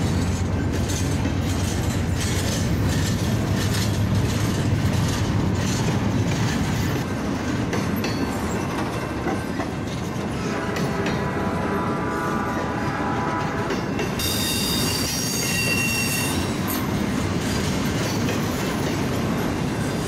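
Norfolk Southern double-stack intermodal freight cars rolling past close by, with a steady rumble and clatter of wheels over the rails. A thin, high wheel squeal rises about two thirds of the way through.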